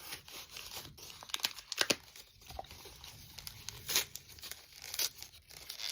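Plastic toy packaging being handled by hand, crinkling and tearing, with irregular rustles and a few sharper clicks at about 2, 4 and 5 seconds in.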